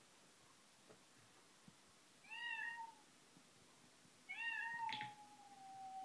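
A cat meowing twice: a short rising-and-falling meow, then a longer one that settles into a drawn-out steady note. A sharp click falls during the second meow.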